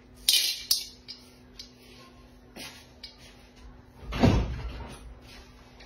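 Dried fish-shaped prawn-cracker pieces dropped into an iron wok of unheated oil, a brief clatter right at the start followed by a few small clicks. About four seconds in there is a louder, dull thump.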